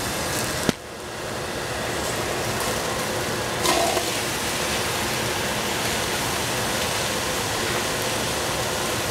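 Cut squash pieces tipped from a bowl into a hot stainless steel pot and sizzling steadily, with a sharp knock just under a second in and a brief clatter near four seconds as more pieces drop in.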